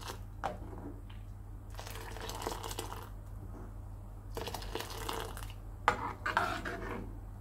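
Boiling milk tea being worked with a steel ladle: scooped up and poured back into the saucepan in splashing streams, with a sharp clink of the ladle against the pan about six seconds in. A low steady hum runs underneath.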